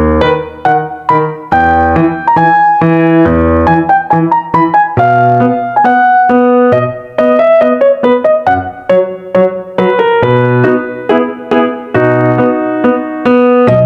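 Background piano music: a melody of quick notes over held low bass notes.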